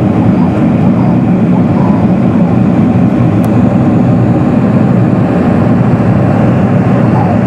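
Boeing 747-400 cabin noise during the climb after takeoff: a loud, steady, low drone of the turbofan engines and rushing air.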